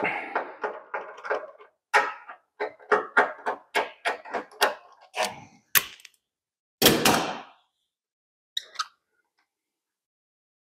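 Nut driver tightening a fastener: a run of sharp metallic clicks, about three a second, for some six seconds. A heavier clunk follows about seven seconds in, then a single small tick.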